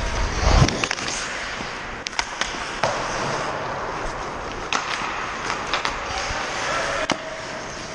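Ice hockey play: skates scraping over the ice amid the rink's echoing hum, with several sharp clacks of sticks and puck.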